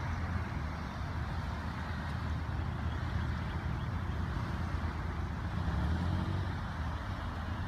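Cars driving slowly past one after another in a line of traffic: a steady rumble of engines and tyres.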